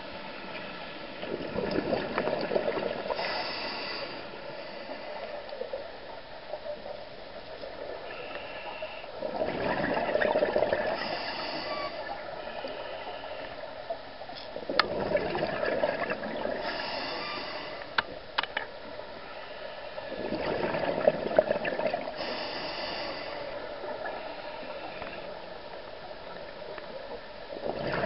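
Scuba diver breathing through a regulator underwater: a rush of exhaled bubbles about every six seconds, with the short hiss of the regulator on each breath. A few sharp clicks near the middle.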